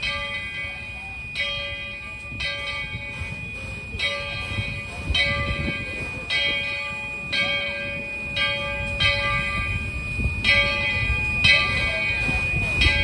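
Steam locomotive bell on 4-6-0 No. 12 ringing steadily, about one stroke a second, each stroke ringing on until the next, over a low rumble.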